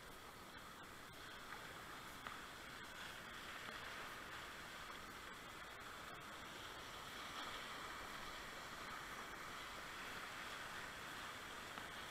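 Steady rush of whitewater as a kayak runs through a river rapid, an even hiss of churning water with a few faint ticks.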